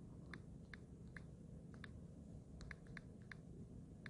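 Faint, light clicks of a phone's on-screen keyboard as a password is typed, about ten taps at an uneven pace, with a quick run of several close together about three seconds in.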